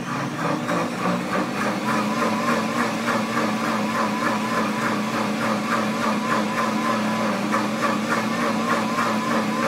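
Pampered Chef Deluxe Cooking Blender's motor running steadily through a heated cycle: a constant low hum with a rapid, regular pulsing whir above it.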